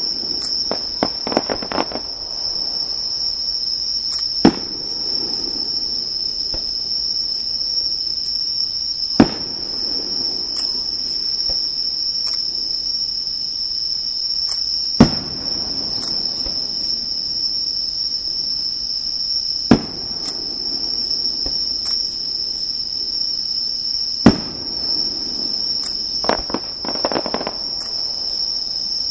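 Fireworks shells bursting with five sharp bangs about every five seconds, with bursts of crackling near the start and near the end. Insects chirr in a steady high-pitched tone under them.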